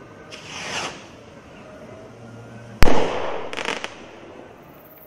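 Evolution Fireworks Enterprise rocket: a short whoosh as it launches, then about three seconds in a sharp, loud bang as it bursts, followed by a few quick crackles.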